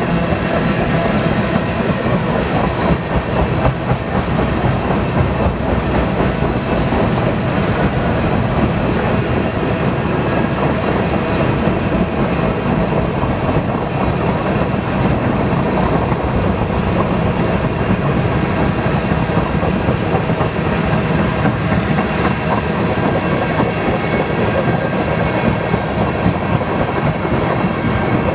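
A freight train's cars rolling past, steel wheels clattering over the rail joints in a loud, steady run.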